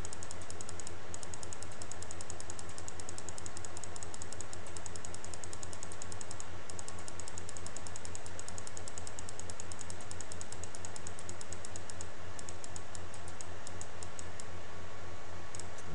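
Rapid, evenly spaced clicking on a laptop as the image is nudged step by step, over a steady low hum; the clicks thin out toward the end.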